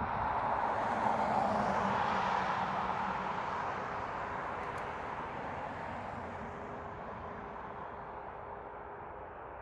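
Jet airliner passing close by, its engine noise swelling to a peak in the first couple of seconds and then slowly fading away.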